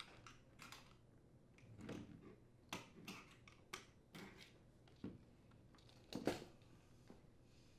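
Faint, scattered clicks and light knocks from hands working on a dishwasher's outer door panel as its wire connector is disconnected and the panel is lifted away. The loudest knock comes about six seconds in.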